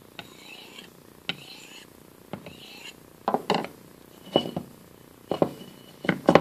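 A Condor Bushlore's steel blade drawn across a Soft Arkansas whetstone in light, soft rasping strokes. From about halfway through come sharp knocks in pairs, roughly one pair a second, as the knife and stone are handled on the wooden bench.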